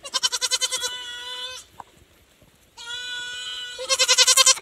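Goat kid bleating twice, each call a long quavering bleat of about a second and a half, with a pause between them.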